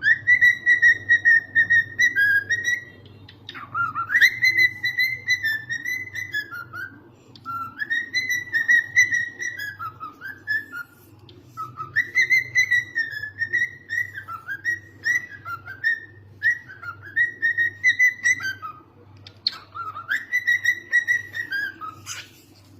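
Cockatiel whistling a warbling, tune-like song in about six repeated phrases of a few seconds each, with short pauses between them, over a faint steady low hum.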